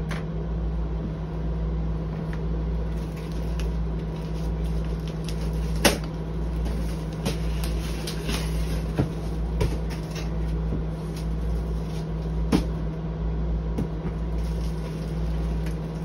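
Large cardboard shipping box being cut open and handled, with several sharp knocks and scrapes of cardboard, over a steady low hum.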